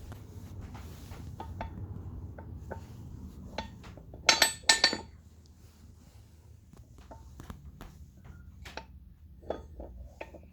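Metal clicks and clanks from a steel ratchet axle stand being worked by hand, with a burst of four or five sharp clanks about four to five seconds in and a few lighter ones near the end.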